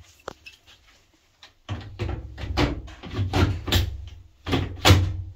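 A run of knocks and bumps, a single click first and then a denser stretch of clunks over the last three seconds, from parts of the washing machine being handled and moved during the repair.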